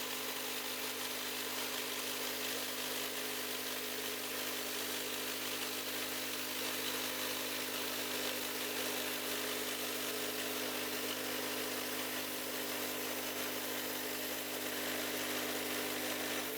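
Sawmill's engine running steadily under load while the blade cuts through a maple log, with a steady high hiss from the cut.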